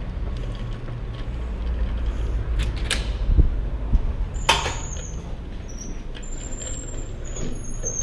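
Low rumble of street traffic with a few knocks, then a glass entrance door swinging open with a loud clatter about halfway through, followed by a faint high-pitched whine as the door mechanism moves and an inner door is pulled open by its handle.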